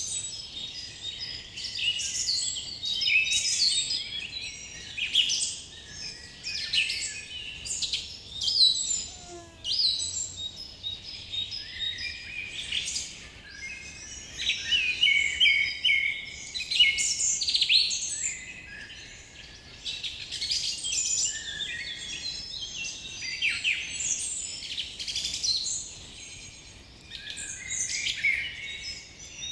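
A dense chorus of many birds chirping and calling over one another in quick, short notes.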